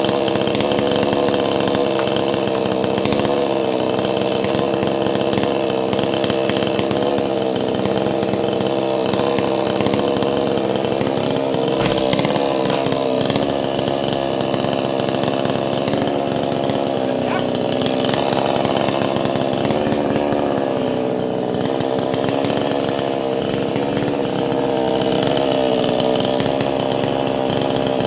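Two-stroke chainsaw running at high speed while cutting a coconut palm trunk, its pitch dipping and recovering slightly under load.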